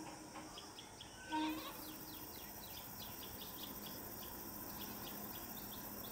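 Faint outdoor ambience with a bird chirping over and over, about three high chirps a second, and a short tonal call about a second and a half in.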